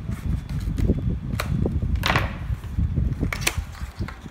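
Cardboard power bank box being handled and opened on a wooden table: scattered taps and knocks, with a short scraping rustle about two seconds in, over a steady low rumble.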